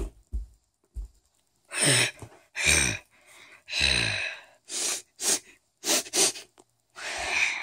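A person's voice making breathy monster noises for a toy Bigfoot: three drawn-out huffs that fall in pitch, then several short sharp puffs, and a longer rasping growl near the end. A few soft low thumps in the first second.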